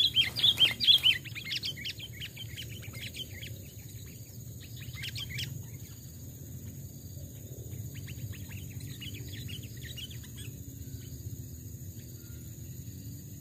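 Sooty-headed bulbul calling: a loud run of quick chirping notes in the first second or so, then softer scattered notes that thin out, with a few faint ones again a little past halfway. A steady low rumble runs underneath.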